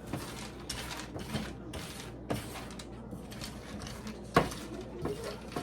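Pumpkin seeds being stirred with olive oil and seasoning salt: irregular scraping and rustling, with a sharp knock about two seconds in and a louder one a little after four seconds.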